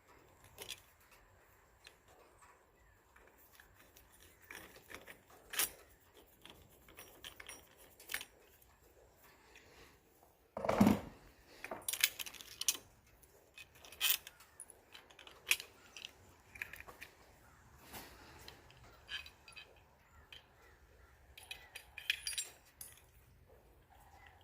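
Small metal deadbolt and lock parts being handled: scattered clicks and clinks, with one louder thump about 11 seconds in.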